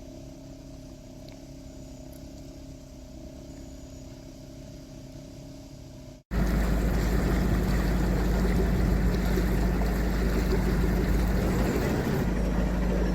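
Narrowboat diesel engine running steadily, heard faintly at first, then about six seconds in much louder and heavier in the low end, as if close to the engine.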